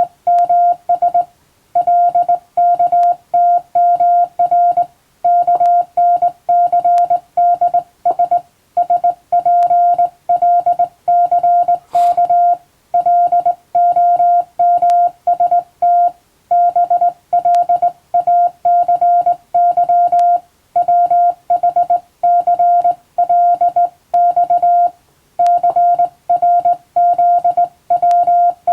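Morse code (CW) practice tone: a steady single-pitch beep keyed on and off in dots and dashes, with short pauses between character groups.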